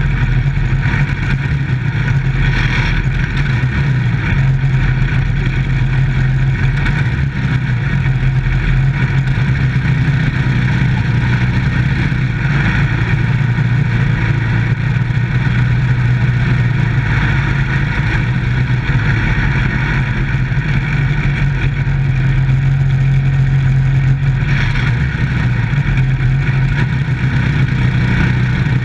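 Dirt-track microstock race car engine heard from inside the cockpit, running hard and steadily at racing speed with only slight rises and dips in pitch.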